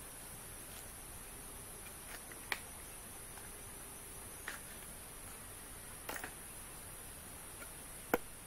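A steady high-pitched insect drone, with a few short sharp cracks spread a couple of seconds apart, the last one the loudest.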